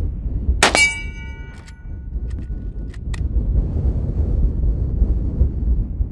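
One rifle shot from a Cimarron Model 1894 lever-action in .30-30 Winchester about a second in, with a hit metal target ringing for about a second after it. A few sharp clicks follow as the lever is worked, all over a steady rumble of wind on the microphone.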